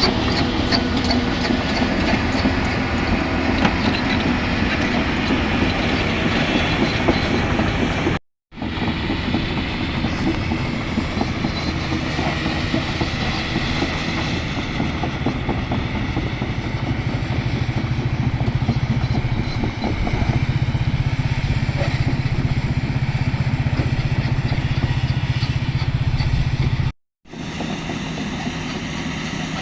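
Hyundai hydraulic excavator working a limestone cut: its diesel engine runs under load, with a clatter of bucket and rock in the first seconds. The sound cuts out for a moment twice, once about eight seconds in and once near the end.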